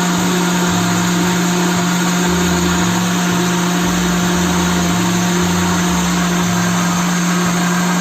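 Electric blender running steadily with an even hum, blending durian flesh with milk and water into a smooth mix.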